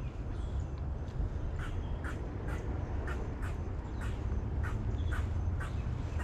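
A bird calling over and over in short notes, about two a second, over a steady low rumble.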